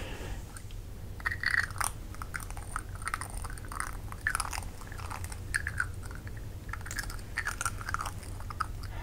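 Close-miked ASMR sounds: irregular soft clicks and crackles, several a second, over a faint steady low hum.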